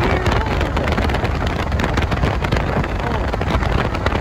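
Steady road and wind noise from a car driving across a highway bridge, with wind rumbling on the microphone.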